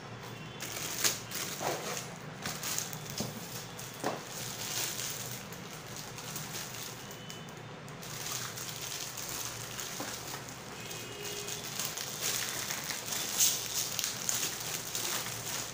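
Clear plastic packaging bag crinkling and rustling as it is handled around a set of plastic spice jars in a rack, with scattered light clicks and knocks. The crinkling is loudest about a second in and again over the last few seconds.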